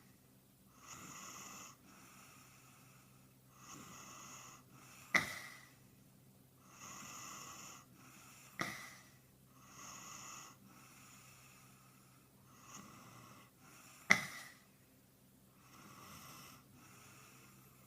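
A person snoring in sleep, sped up and pitched up, with a raspy breath about every three seconds. Three sharp clicks stand out as the loudest sounds.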